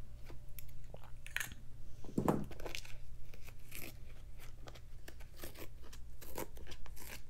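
Tearaway embroidery stabilizer being torn and picked off stitched fabric: a run of irregular small crackles and rips.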